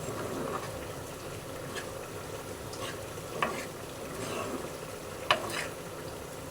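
Food sizzling and frying in a pan while it is stirred, with a few sharp knocks, the loudest a little after five seconds in.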